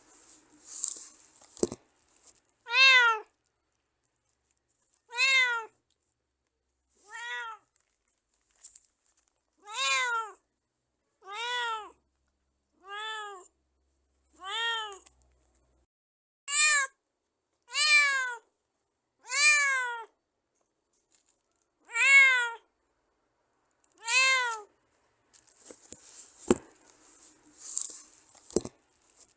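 Domestic cat meowing repeatedly: about a dozen separate meows, each rising and then falling in pitch, one every one to two seconds. A few faint rustles and sharp clicks come near the start and again near the end.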